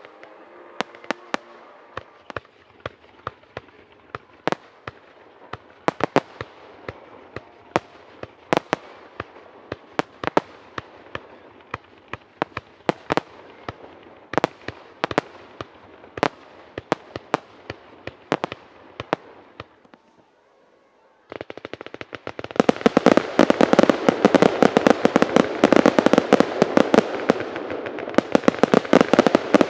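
Fireworks display: scattered sharp bangs of bursting shells, one or two a second. About two-thirds of the way through, after a brief lull, a much louder, dense barrage of rapid crackling cracks takes over.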